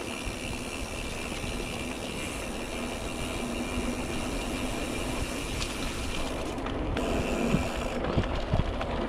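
Mountain bike rolling fast over a gravel path: steady tyre noise with small rattles and clicks from the bike, and a low rumble of wind on the camera's microphone, getting slowly louder.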